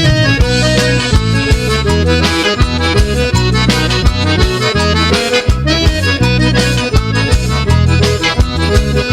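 Instrumental break of an upbeat gospel song, with a steady beat, a bass line and a lead melody instrument and no singing.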